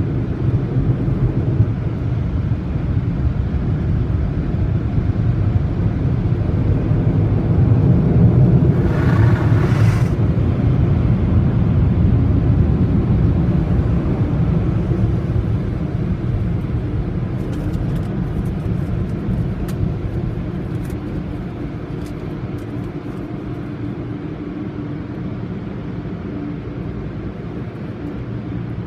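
Steady low rumble of car wash tunnel machinery heard from inside a car near the tunnel exit, with a brief hiss about nine seconds in and a few light clicks later. The rumble slowly fades over the second half.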